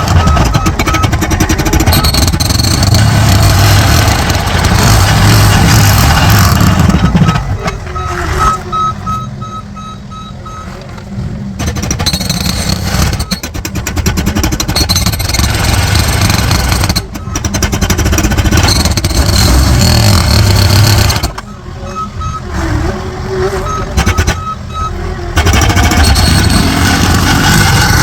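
Heavy construction machinery working a street dig, loud and dense, easing off twice; during each lull a reversing alarm beeps steadily.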